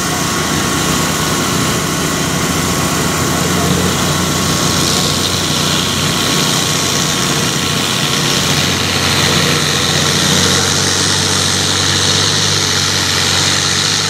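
Diesel engine of a 12,500 lb class pulling farm tractor running hard under full load as it drags a weight-transfer sled down the track. It holds a steady, loud drone.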